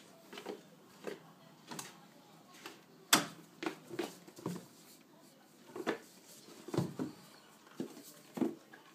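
Front door's lever handle rattling and the door knocking in its frame as a toddler pulls at it, trying to shut it: a string of irregular clicks and knocks, the loudest about three seconds in.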